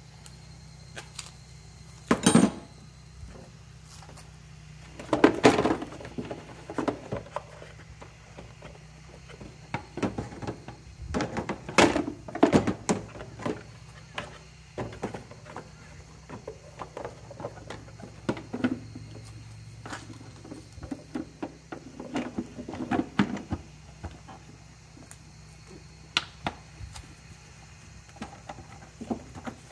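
Scattered knocks, clicks and thunks of hands working on the plastic air cleaner housing and engine-bay parts of a Suzuki Alto, over a steady low hum.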